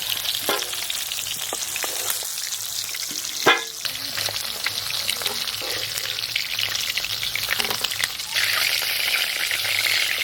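Hot oil sizzling in a cooking pan as pieces of food fry, with a sharp knock of a utensil against the pan about three and a half seconds in. The sizzling grows louder about eight seconds in.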